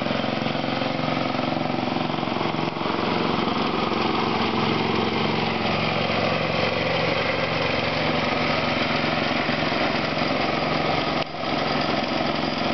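1963 Wheel Horse 603 garden tractor's engine running steadily while the tractor stands still.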